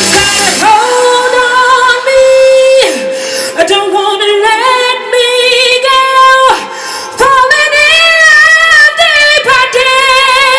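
A woman singing solo in a live performance: the band drops out about a second in and she holds long, wavering ad-lib notes with heavy vibrato, nearly unaccompanied.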